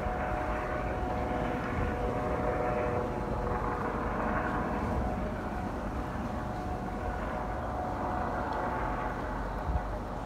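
Steady distant engine drone of urban traffic or an aircraft, a continuous rumble with a faint held hum over it.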